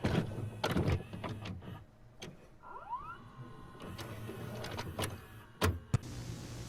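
VCR mechanism loading and starting a cassette: a run of clunks and clicks, a small motor whirring up in pitch about three seconds in, then a few sharp clicks before a steady hiss sets in.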